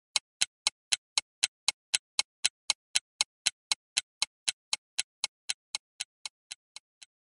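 Sound-effect ticking: short, evenly spaced ticks about four a second, growing fainter toward the end.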